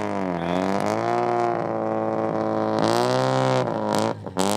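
Mazda RX-7's engine being revved repeatedly and loudly: the pitch climbs, holds high for a second or so, falls back and climbs again several times.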